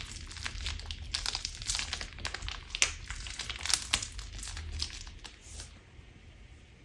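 Crunchy slime being squeezed and pressed by hand, giving a quick run of crackles and pops that thins out about five and a half seconds in.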